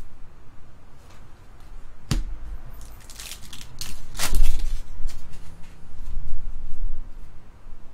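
Trading cards and a foil pack wrapper being handled: rustling and crinkling, with a sharp snap about two seconds in and a louder one just after four seconds.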